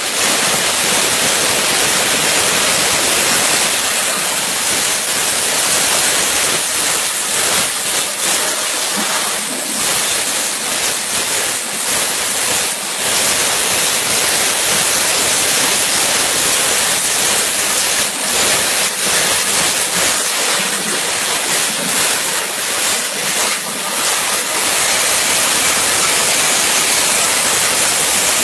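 CNC waterjet cutter's high-pressure water jet, a loud, steady hiss, strongest in the high register.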